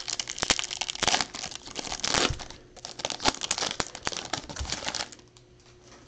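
Foil wrapper of a Topps Finest baseball card pack being torn open and crinkled by hand, a dense irregular crackling that stops about five seconds in.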